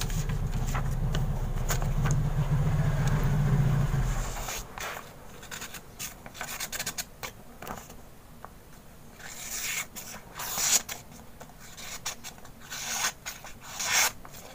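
Italian switchblade's stainless blade slicing through paper in short scraping, rustling cuts that come in clusters in the second half. A low rumble fills the first four seconds, then stops.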